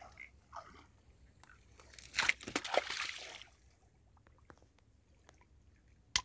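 Water splashing and the crunch of a wet nylon gill net for about a second and a half, starting about two seconds in, as a catfish is handled and pulled free of the net in shallow water. A single sharp click near the end.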